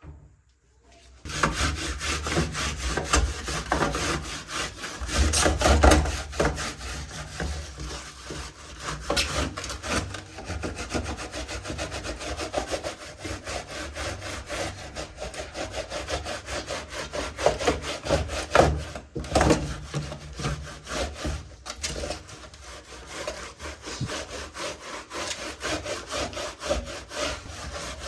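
Fast, continuous scrubbing on a dirty keyboard, stroke after stroke, starting about a second in.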